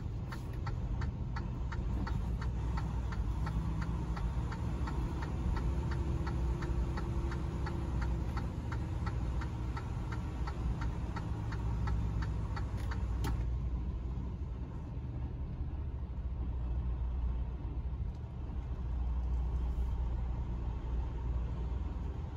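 A semi truck's diesel engine rumbles low inside the cab as the truck rolls slowly. Over it the turn signal ticks steadily, then stops with a sharper click about 13 seconds in.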